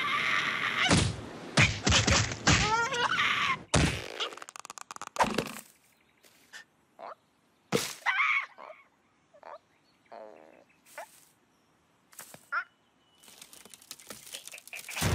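Cartoon slapstick sound effects: a loud whooshing rush with knocks, cracks and short gliding cartoon-bird squawks, then scattered short squawks and a warbling sound, and a loud crashing rumble starting near the end.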